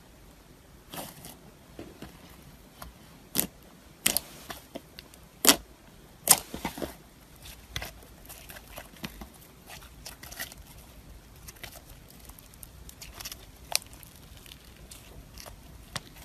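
Thick slime being pressed, squeezed and stretched by hand, giving scattered sharp pops and crackles, busiest in the first half.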